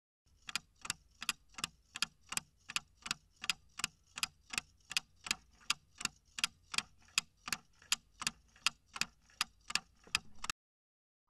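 Ticking-clock sound effect for a countdown timer: regular sharp ticks, a little under three a second, that stop abruptly near the end.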